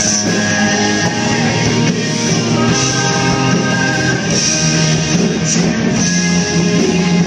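Live rock band playing loudly, with guitar and drums.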